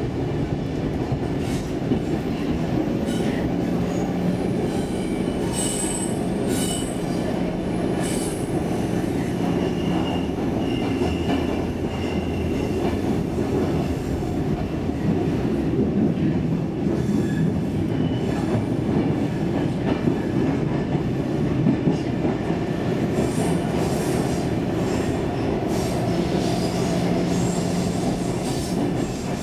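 Stockholm Metro C15 subway car heard from inside while running, a steady rumble of wheels on rail with brief high wheel squeals now and then.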